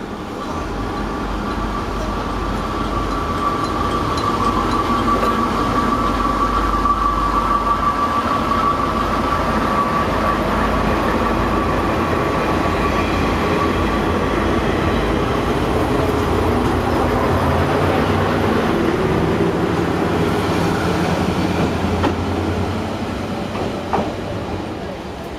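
JNR KiHa 28/58 series diesel railcars pulling out and running past close by, their DMH17H diesel engines working under power with a held whine in the first half. The engine note rises later on, and the sound fades near the end as the train draws away, with one sharp knock just before.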